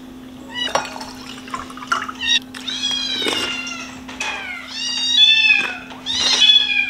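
Kitten meowing again and again in high-pitched calls, the loudest near the end, over a steady low hum.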